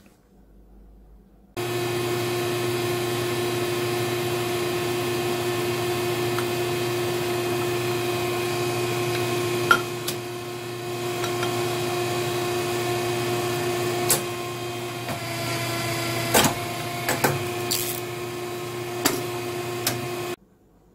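Vertical injection moulding machine running with a steady hum. Sharp metallic clicks and clunks come from the press and mould about halfway through and several more near the end. The hum starts suddenly just after the beginning and cuts off suddenly near the end.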